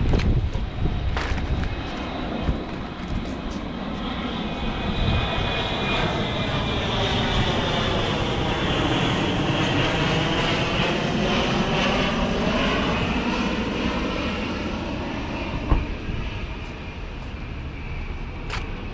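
An aircraft flying over, its engine noise swelling and then fading away over several seconds. A single sharp knock sounds near the end.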